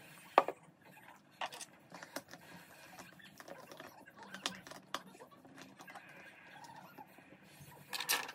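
Scattered small clicks and knocks of hands handling things on a table: a drink can set down, then a gravity bong's bowl cap being fitted onto its bottle. There is a short scratchy burst near the end.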